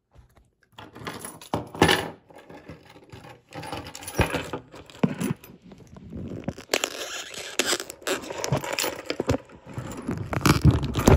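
Plastic shrink-wrap on a DVD case crinkling and tearing as it is pulled off, with irregular scrapes and clicks from handling.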